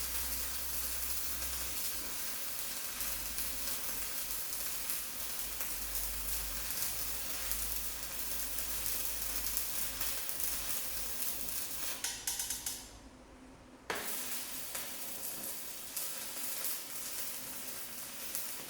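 Arc of a rechargeable battery-powered stick welder crackling steadily as an electrode burns. It drops out for about two seconds past the middle, then strikes again and carries on.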